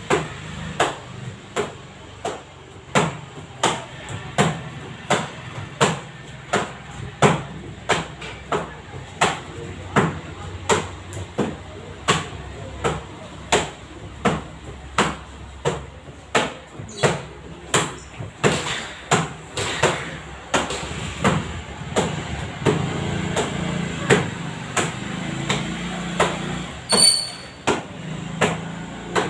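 Bare feet slapping handheld taekwondo kick paddles in rapid alternating roundhouse kicks, about two sharp slaps a second. This is a speed-kicking drill, and the slaps come softer over the last few seconds.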